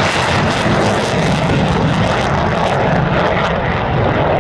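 Twin Pratt & Whitney turbofan engines of a USAF F-15C Eagle, loud and steady jet noise; the highest hiss thins out about three seconds in.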